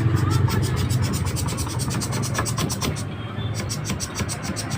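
Rapid, even clicking, about nine clicks a second, with a brief pause about three seconds in, over a low steady hum.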